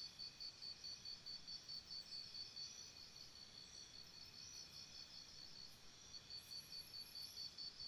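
Crickets chirping: one cricket in a faint, steady run of chirps about four a second that weakens for a couple of seconds midway, over a continuous high trill from other crickets.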